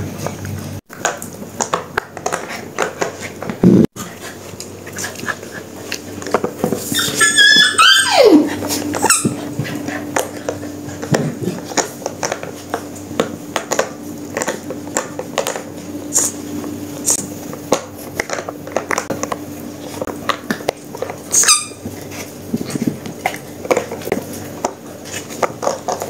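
Puppies playing and chewing on toys: frequent clicks and taps from teeth and claws on rubber and tile, with high-pitched squeals about seven seconds in and again near the end.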